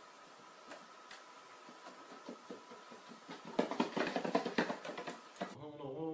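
A quick flurry of knocks and taps lasting about two seconds, over a faint hiss with a steady high hum; near the end it cuts to a voice.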